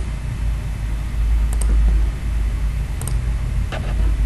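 Two computer mouse clicks about a second and a half apart, over a steady low rumble of background noise.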